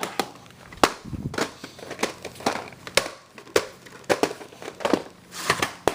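A VHS cassette and its case being handled close up: crinkling plastic with a string of sharp clicks and knocks.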